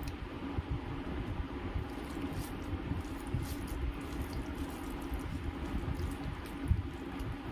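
Fingers kneading and mixing soft rice with potato-paneer curry on a steel plate: soft wet squishing with faint clicks of fingers on the metal, and one sharper tap near the end.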